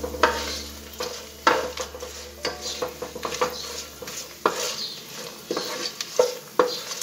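Wooden spatula stirring and scraping a nonstick pan, with sharp taps against the pan about a second apart. Under it is a light sizzle of cashews, peanuts and whole spices frying in mustard oil.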